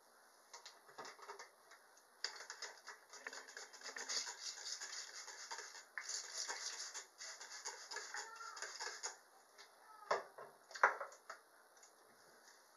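Fingers working through natural hair and pulling out a hair tie close to the microphone: a dense crackly rustle for several seconds, then a few louder knocks near the end.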